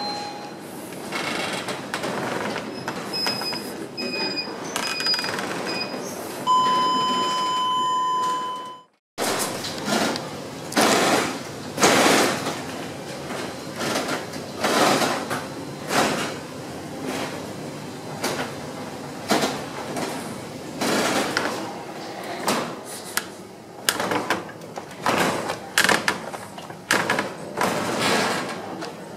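Cruise ship interior in heavy seas: first a few short electronic beeps and a steady tone over background noise, then, after a sudden cut, irregular rattling and banging surges every second or two as doors and fittings shift with the ship's rolling.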